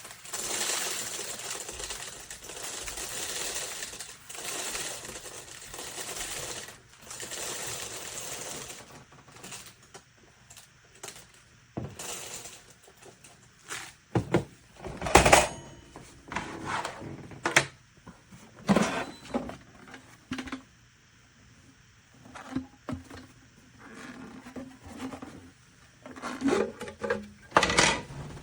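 Water from a tap splashing in several bursts of a second or two as a removable coffee-machine part is rinsed. After that, hard plastic parts clatter and knock against each other and the sink.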